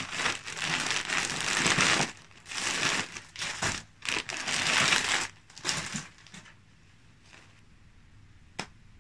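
A plastic bag crinkling and rustling in bursts as hands rummage through the knitting inside it. The rustling stops about six seconds in, and a single click follows near the end.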